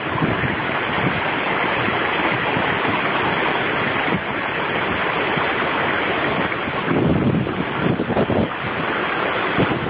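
Shallow stream rushing over stones, with heavy splashing as a black bear runs through the water and then wades. A few louder surges of splashing come in the second half.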